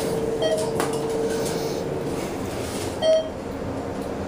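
ThyssenKrupp hydraulic elevator: a steady hum that stops about two seconds in, and two short electronic beeps from the elevator, about half a second in and about three seconds in.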